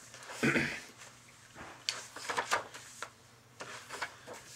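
Rustling and a few soft clicks of a picture book being handled and opened on a lap, with a short voice sound about half a second in.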